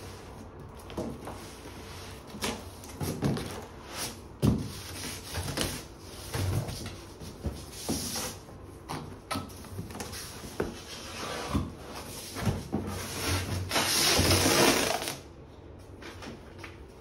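A cardboard shipping box and its packing being handled while unpacking: irregular knocks, clicks and rubbing scrapes, with one longer rasping noise lasting about a second and a half near the end.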